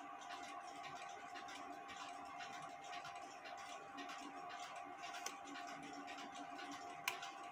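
Faint steady hum with two small metallic clicks from the clock movement as its hand is worked. No strike sounds: the movement fails to strike at the hour, a fault traced to a wrongly set snail.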